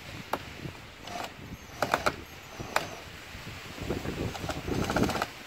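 Cordless drill-driver backing out a Torx screw on a car's air filter housing cover: a few sharp clicks and knocks, then about a second and a half of the drill running with a rattly, clicking sound near the end.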